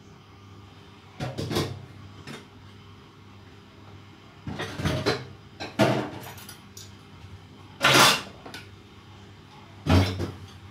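Kitchen clatter: a string of separate knocks and clunks of pots and utensils being handled and set down, about six in all, the loudest about eight seconds in.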